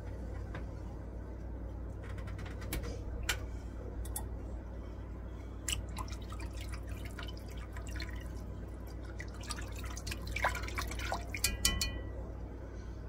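A silicone-coated whisk stirring thin soup in an enamelled Dutch oven: soft liquid sloshing and dripping, with scattered light clicks over a steady low hum. There is a cluster of louder ticks near the end.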